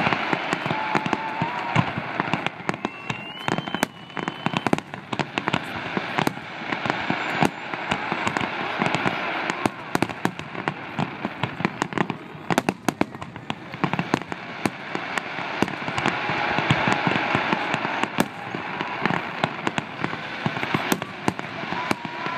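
Aerial fireworks shells bursting overhead in quick succession, a dense, continuous run of bangs and crackling pops.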